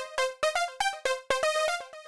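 Short musical intro jingle: a quick run of short, bright pitched notes at several different pitches, stopping just at the end.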